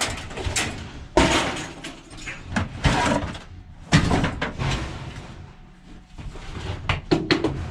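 Pieces of scrap metal being handled and dropped: a few sudden loud bangs and clanks, then a quick run of knocks near the end.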